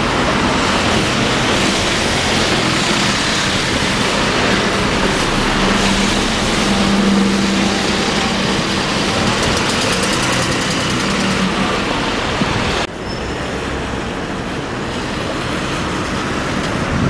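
Street traffic with a large road vehicle's engine hum swelling and fading as it passes, over dense wind noise. About thirteen seconds in the sound drops abruptly to quieter traffic and wind.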